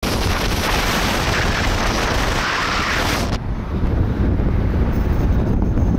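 Wind rushing over the microphone of a camera riding in a moving car, over the low rumble of the car on the road. The loud rushing hiss drops away suddenly about three and a half seconds in, leaving the low rumble.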